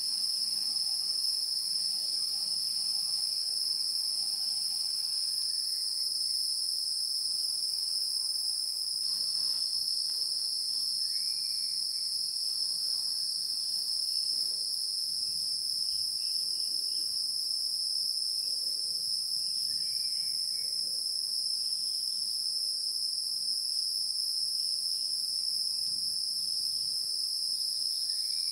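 A steady, high-pitched insect chorus buzzing without a break, with a few faint short chirps over it.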